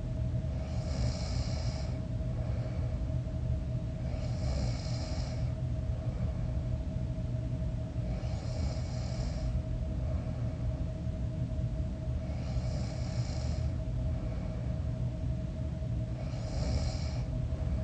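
A sleeping man snoring, five snoring breaths about four seconds apart, over a steady low hum.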